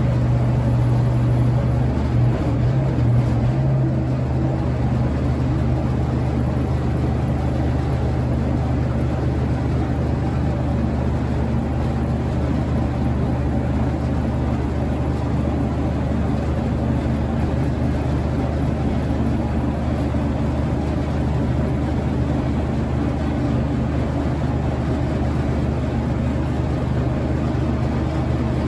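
Diesel engine of an M816 military wrecker running steadily while it works its crane boom, with a slight change in pitch about two to three seconds in.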